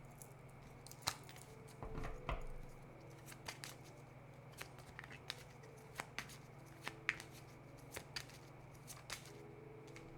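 Tarot cards being handled and laid out: light, scattered snaps and taps of cards, with a soft thump about two seconds in.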